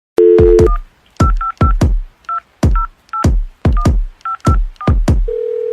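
A touch-tone telephone being dialled: a brief tone, then a quick run of about a dozen keypad beeps, each a two-tone pair with a thump. A steady single telephone tone starts a little after five seconds in.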